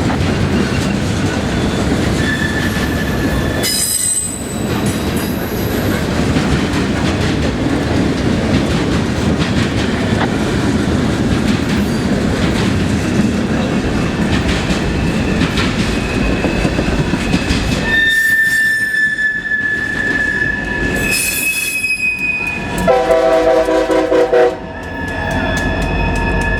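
A CSX local freight train rolling past, with a steady rumble of wheels on rail and brief high-pitched wheel squeals. Near the end the locomotive sounds one loud chord blast on its air horn, about a second and a half long, that cuts off sharply.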